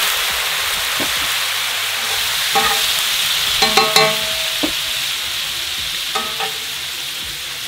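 White wine sizzling and boiling hard in a hot enamelled cast-iron pan of sliced sausage, butter and garlic, deglazing it. A few short ringing clinks of metal tongs against the pan come through, clustered about three and a half to four seconds in.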